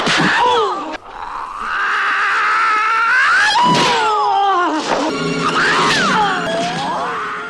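A man's long, wavering high-pitched battle cries in the style of Bruce Lee, the pitch sliding up and down, after a few short cries at the start; the last cry fades out near the end.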